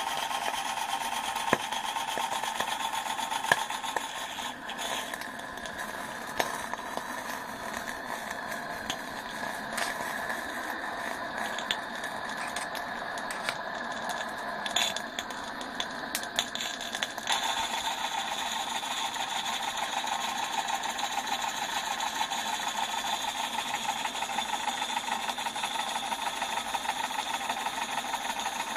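Accucraft Ruby live-steam model locomotive running on blocks with its wheels spinning free: a steady steam hiss with fast, even exhaust beats from the cylinders. The sound changes about five seconds in, with scattered clicks, and picks up its fast beat again about seventeen seconds in.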